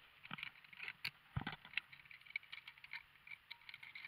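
Faint clinking and rattling of zipline harness gear and rope being handled, scattered small ticks with one soft thump about a second and a half in.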